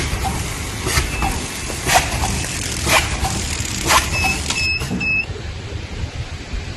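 Automatic bread-packaging machine running, with a steady low rumble and a sharp clack about once a second as each cycle goes through. About four seconds in, three short high beeps sound close together, and the clacks then fade.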